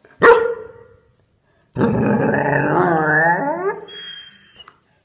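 A dog barks once sharply, then gives a drawn-out call of about two seconds that wavers in pitch. A fainter, steady high tone follows for about a second near the end.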